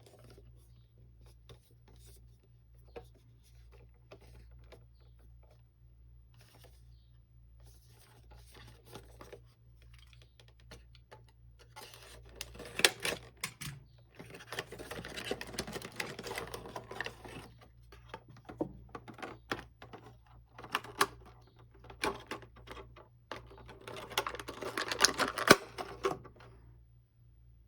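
Packaging being unwrapped and handled by hand: scattered small clicks and rustling, sparse at first, then busier and louder in two stretches, about halfway through and near the end, over a faint low hum.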